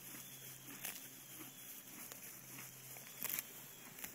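A horse grazing: tearing mouthfuls of grass and chewing them, with scattered crisp crunching clicks, the loudest cluster about three seconds in.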